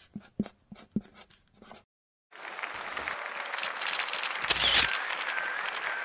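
Marker pen scratching out short drawing strokes, then, after a brief gap a little past two seconds in, a dense hiss of noise with rapid camera shutter clicks.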